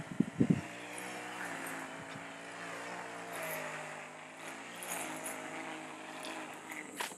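Steady drone of a distant engine, its pitch holding nearly level with a slight waver. A few loud knocks come just after the start.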